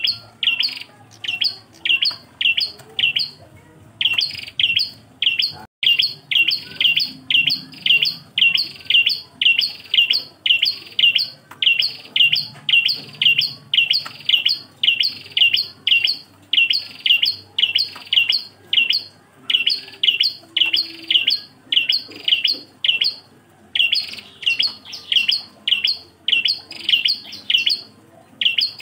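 A single prenjak klawu, a small warbler, singing: a long run of sharp, evenly repeated chirps, about two to three a second, broken by two short pauses.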